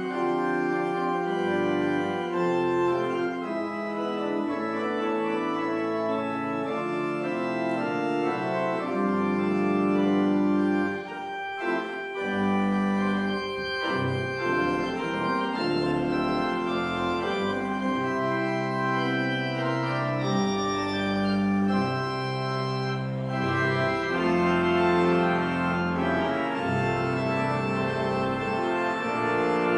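Pipe organ playing slow, held chords that change every second or two, with a short break a little before the middle.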